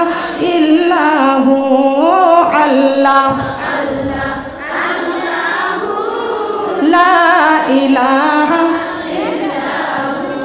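A woman singing a Bengali devotional song in praise of the Prophet Muhammad, in long wavering held notes.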